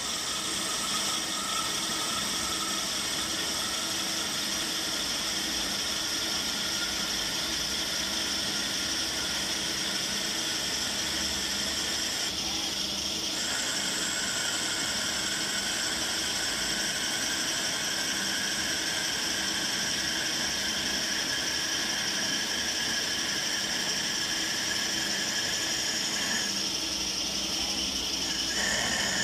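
EMCO Turn 340 CNC lathe running a turning job: a steady machine hum and hiss with several high whining tones, which drop out briefly about twelve seconds in and again near the end.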